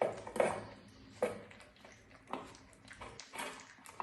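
Dog eating: irregular wet chewing and smacking sounds, with a sharp click or smack about once a second.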